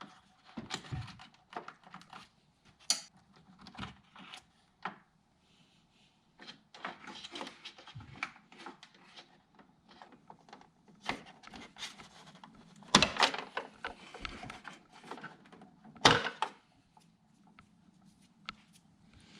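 Hand work on the engine-bay parts of a BMW: scattered clicks, knocks and rattles of plastic and metal pieces being handled and unclipped, with two louder knocks in the second half.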